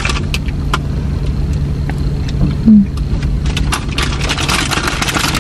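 Steady low hum of a car running while parked, with scattered small clicks and rustles. A short voiced 'mm' comes about two and a half seconds in.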